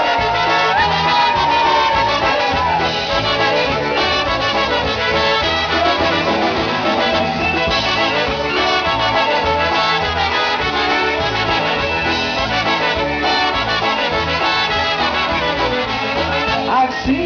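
Live polka band playing an instrumental break: two trumpets and clarinet carrying the melody, with saxophone and concertina, over drums keeping a steady beat.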